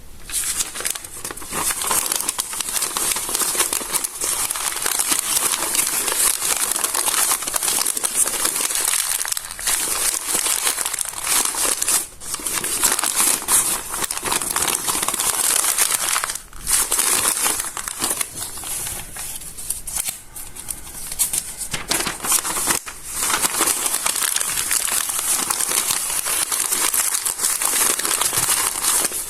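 Stiff, water-damaged notebook pages being handled and smoothed out, crinkling and crunching almost without pause. The crinkling eases off briefly a few times and is softer for a few seconds in the middle.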